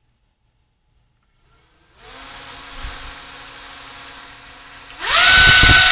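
Small brushless drone motor with a propeller, driven by a DIY electronic speed controller, starts about two seconds in and runs steadily with a whine and a rush of air. Near the end it is throttled up in a burst: the whine rises quickly in pitch and becomes much louder.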